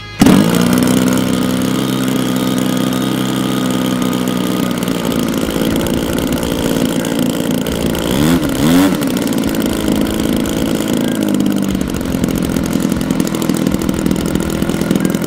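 Brand-new Desert Aircraft DA-120 twin-cylinder two-stroke gas engine on a giant-scale RC plane running on its first run. It runs steadily, is briefly revved up and back down twice about eight seconds in, then settles back to a steady run.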